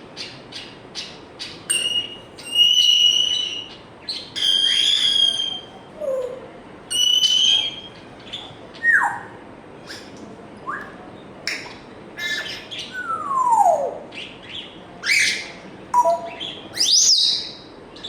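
African grey parrot clicking and whistling: a quick series of sharp clicks, then a string of separate whistled notes, some held steady and some gliding down, with a long falling whistle about three-quarters of the way through and quick rising sweeps near the end.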